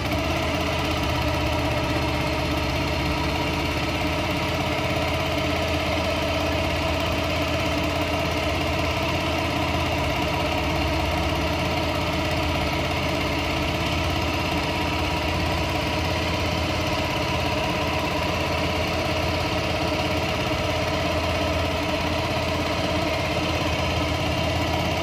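Homemade outboard motor, a 6 hp four-stroke petrol engine driving through a three-wheeler motorcycle gearbox, running steadily under load while the boat is underway.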